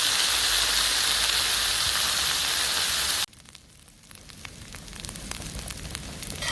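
Wood fire burning in a fire pit: a loud, even hiss that cuts off suddenly about three seconds in, followed by quieter scattered crackles.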